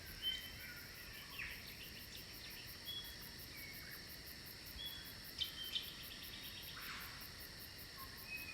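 Faint forest ambience of insects: a very high, evenly pulsing chirr over a steady high hiss, with scattered short high chirps.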